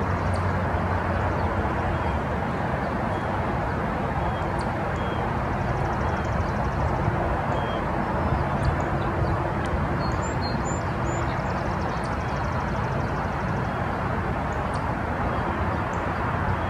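Steady outdoor background noise, an even rushing rumble, with a few faint short high chirps scattered through it.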